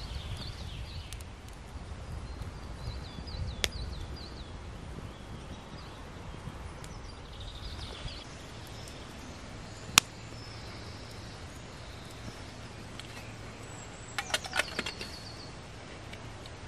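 Small birds chirping in short high calls over a steady low outdoor background, with sharp pops from the campfire under the kettle, once about a quarter of the way in and louder about ten seconds in. Near the end comes a quick run of clicks.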